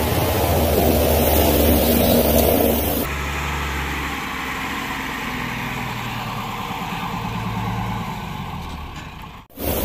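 A heavy truck's engine idling steadily with a low hum, starting about three seconds in after a louder stretch of steady hiss and low hum, and cutting off just before the end.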